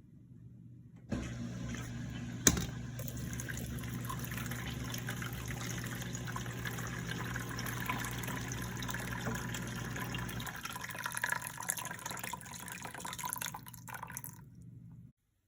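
Dishwasher running: a pump motor hums steadily under rushing water, starting with a click about a second in. The hum stops about ten seconds in while the water noise carries on a few seconds longer, then cuts off.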